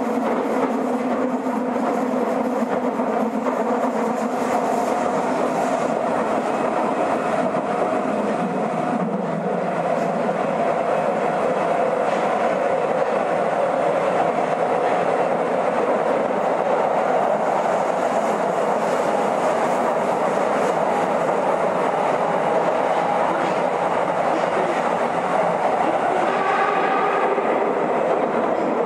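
Nagoya Municipal Subway 2000 series train, rebuilt with IGBT inverter control, running steadily through the tunnel between stations. Its wheels and motors make a continuous rumble with a clickety-clack from the rails.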